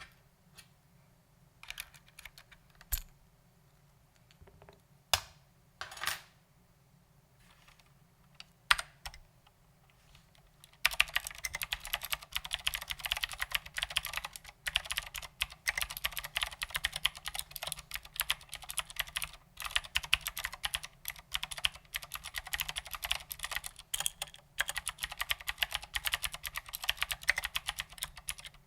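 Ducky Legend mechanical keyboard with clicky Cherry MX Blue switches and SA-profile ABS doubleshot keycaps being typed on: a few separate keystrokes, then from about eleven seconds in, fast continuous typing.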